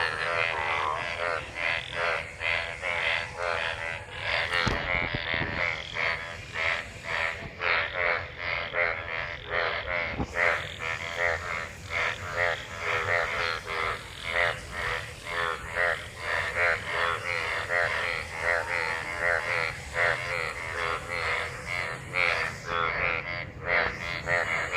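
Breeding chorus of many frogs calling after monsoon rain: dense, overlapping croaks repeating several times a second without pause.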